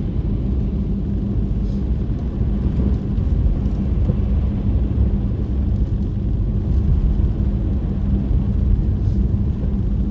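A car driving steadily on the road: a continuous low rumble of engine and tyre noise with a constant hum under it.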